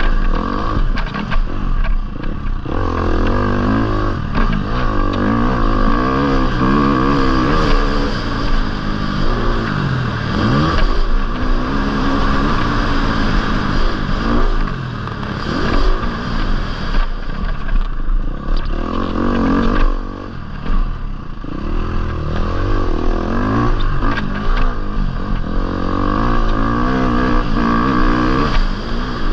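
Motocross bike's engine heard from on board, revving up and falling back again and again as it is ridden over a dirt track.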